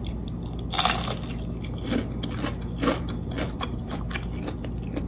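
Someone biting into deep-fried battered fish fillet with a crispy crust, a loud crunch about a second in, then chewing with short crackly crunches of the batter.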